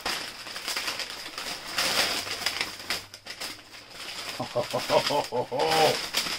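Crumpled packing paper crinkling and rustling as it is pulled out of a cardboard box by hand. Near the end, a man's voice makes a brief wordless vocal sound.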